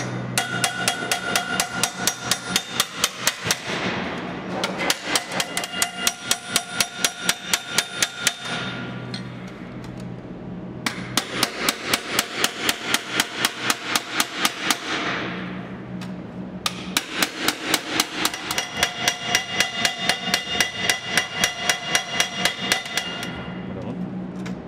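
Hand hammer striking a strip of sheet metal against a steel bench, about six quick, light blows a second with a ringing metallic tone. The blows come in four runs of a few seconds each, with brief pauses between them.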